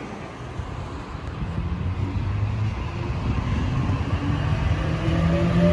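A Sydney Trains Waratah electric train running past and pulling away, its rumble building from about a second in, with a motor whine that grows louder and rises slightly in pitch as it gathers speed.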